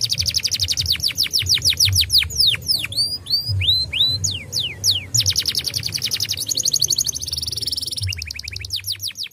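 Domestic canary singing: fast trills of rapid downward-sweeping notes, a few slower swoops and short rising notes partway through, and a brief steady buzzing note near the end before another trill. A low hum runs underneath.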